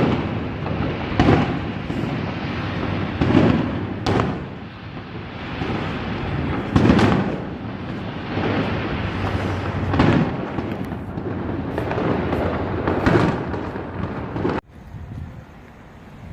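Fireworks display: a string of booming bursts, one every second or two, each trailing off in a rumbling echo. The sound cuts off abruptly near the end.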